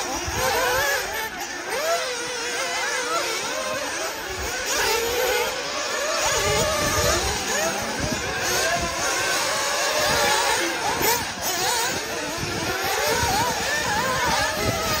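Several 1/8-scale nitro RC buggy engines revving. Their overlapping high whines keep rising and falling in pitch as the cars accelerate and lift off.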